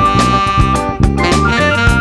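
Instrumental funk-jazz band groove: drum-kit hits on a steady beat, with bass and electric guitar and a held lead melody note over them.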